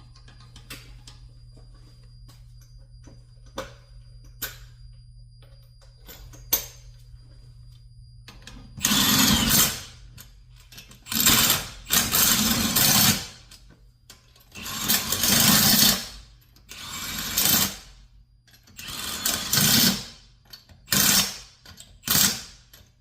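Impact wrench running lug nuts onto a wheel in repeated bursts of about a second each, seven or eight in all, starting about nine seconds in. Before that, a few faint clicks over a low hum.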